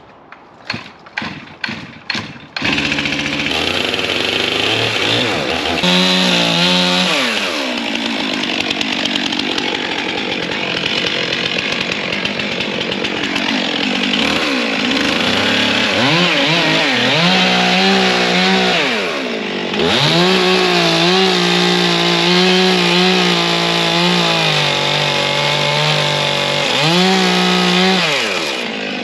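Gas chainsaw starting up about two and a half seconds in after several short sharp strokes, then running and cutting into a large oak log, its engine pitch dropping and recovering several times as it takes load.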